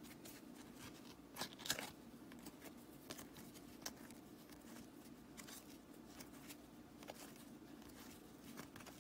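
Faint papery swishes and clicks of a stack of hockey trading cards being thumbed through card by card, a couple of louder snaps about one and a half to two seconds in, over a steady low hum.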